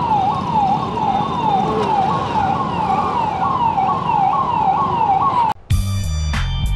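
Emergency-vehicle siren sounding in quick falling sweeps, about two a second, over steady road-traffic noise. About five and a half seconds in it cuts off abruptly and music with a heavy bass takes over.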